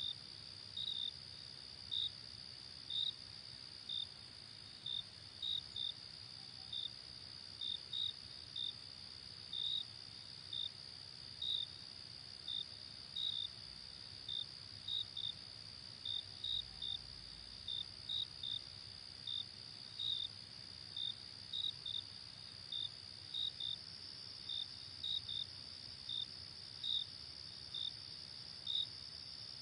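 Night insect chorus: a steady high-pitched cricket trill, with short, louder chirps from a nearer cricket coming irregularly, about one or two a second.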